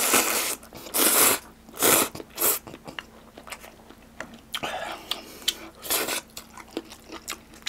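A person slurping spicy ramen noodles, several loud slurps in the first two and a half seconds, then chewing with small wet mouth clicks, broken by a couple more short slurps.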